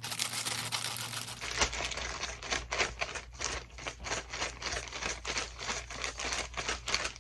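Paper rustling and crinkling in quick, irregular strokes as slips of paper with names on them are shuffled and mixed by hand for a draw.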